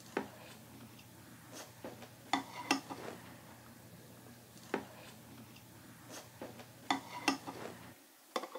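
Metal spoons and chopsticks clinking and tapping against bowls during a meal, about eight sharp taps at uneven intervals, over a low steady hum that stops near the end.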